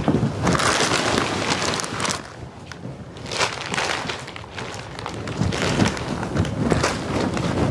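Clear plastic mattress wrapping rustling and crinkling as it is pulled off and pushed down around a mattress, loud at first, quieter around two to three seconds in, then louder again in irregular bouts.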